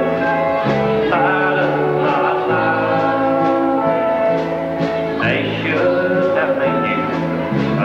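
Live country band playing: fiddle, acoustic guitar and drums, with a singer holding long notes over a steady beat.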